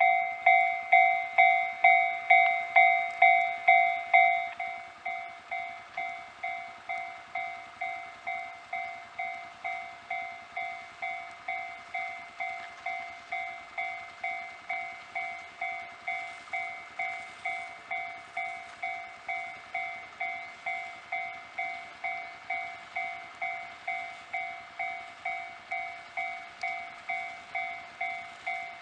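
Japanese railway level-crossing warning bell ringing in a steady, even rhythm of a little under two strikes a second. It is loud for about the first four seconds, then drops to a clearly quieter level and keeps ringing.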